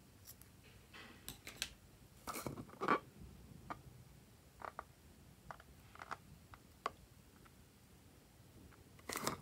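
Small scissors snipping open a slime-filled rubber balloon, then the balloon being squeezed so the slime squelches out, with scattered short clicks and crackles. The loudest are about three seconds in and just before the end.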